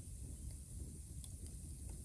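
Bamboo fire burning down to embers, with a few faint, sparse crackles over a steady low rumble.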